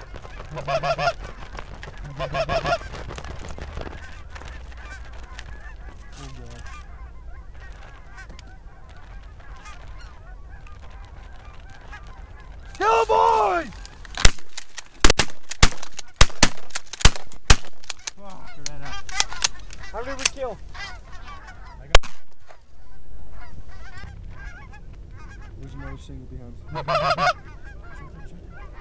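Canada goose honks, then a rapid volley of about eight 12-gauge shotgun blasts over some three seconds as the hunters shoot at a passing flock, with one more shot a few seconds later.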